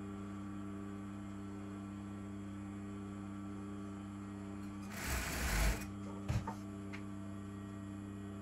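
Steady low electrical hum, with a brief loud rustle of satin fabric being handled at the sewing machine about five seconds in, then a couple of short clicks.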